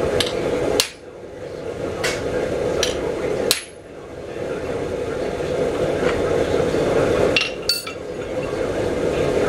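Blacksmith's hammer striking a hand-held chisel set on a steel bar on the anvil: about half a dozen sharp metallic blows at uneven intervals, some ringing briefly, with a pause in the middle. A steady hum runs underneath.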